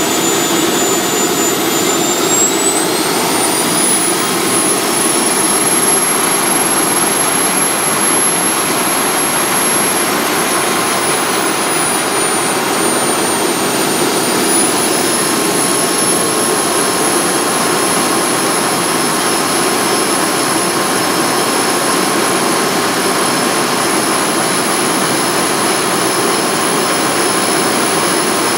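Kerosene-fired model gas turbine of a 5-inch gauge GT3 locomotive running, a steady rushing noise topped by a high whine. The whine rises about two seconds in as the turbine speeds up, dips briefly around twelve seconds, then climbs again and holds.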